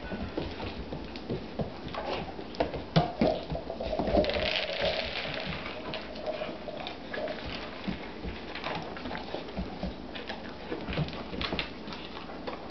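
Red rubber Kong toy knocked about and rolling on a wooden parquet floor, kibble spilling out of it and skittering across the boards, mixed with the greyhound puppy's claws clicking on the wood. The clatter is made of many quick, irregular ticks and knocks, thickest about four to six seconds in.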